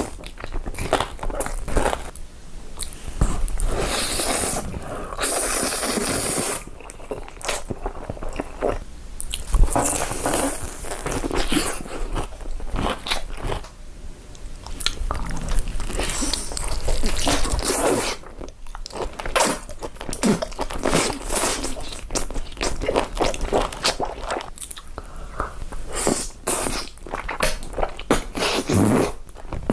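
Ice being bitten and chewed: many sharp crunches in quick succession, with a few short pauses.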